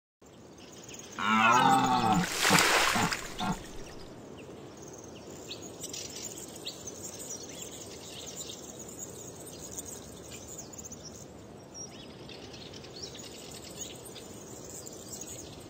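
Logo sound: a deep animal bellow, like a stag roaring, about a second in, followed by a short loud rushing burst. After that comes a steady quieter outdoor background with faint bird chirps.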